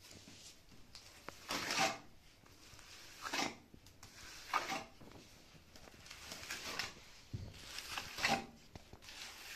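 Wooden float spreading and pressing wet fibred earth–lime–cement plaster onto a brick stove wall: about five short scraping strokes, one every second or two.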